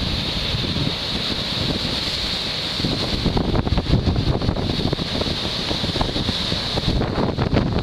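Wind buffeting the camera microphone in uneven gusts, stronger from about three seconds in, over a steady hiss of sea surf.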